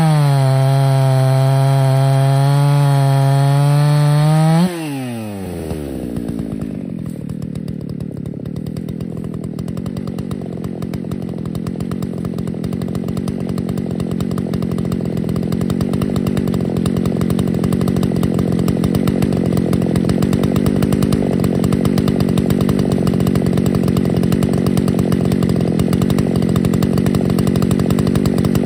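Ported Husqvarna 288XP chainsaw on an Alaskan chainsaw mill running at full throttle through white oak, then let off about four and a half seconds in, its revs falling away to idle. It then idles steadily, growing slightly louder.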